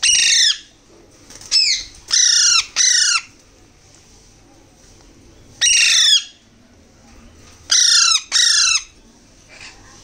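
Alexandrine parakeet chicks giving harsh food-begging squawks while being hand-fed from a syringe: about seven loud calls, each falling in pitch, several coming in quick pairs.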